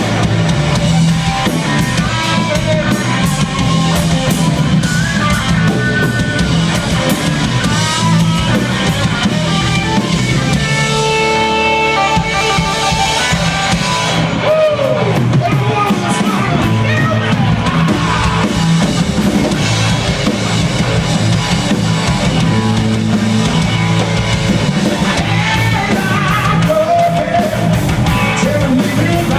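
Rock band playing live: distorted electric guitars, electric bass and a drum kit in an instrumental passage. About halfway through, the drums and bass thin out for a few seconds under held guitar notes, and a lead vocal comes in near the end.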